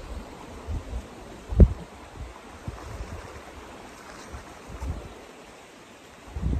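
Wind buffeting the microphone in uneven low gusts, with a single sharp thump about one and a half seconds in.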